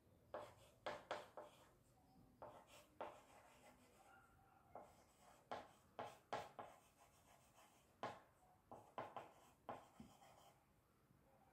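Chalk writing on a small blackboard: a run of short, faint taps and scrapes as the chalk strokes are written. The strokes stop near the end.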